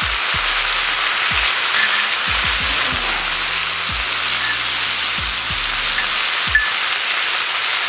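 Chopped onion, carrot and other vegetables sizzling in hot oil on a steel saj griddle over a low wood fire, stirred with a metal spatula. A steady frying hiss, with one sharp click about six and a half seconds in.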